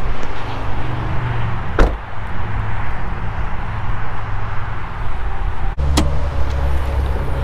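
Car hood being opened: a sharp click about two seconds in, then a second sharp click about six seconds in as the hood's safety latch is released by hand. Both are heard over steady wind-like rushing and low rumble outdoors.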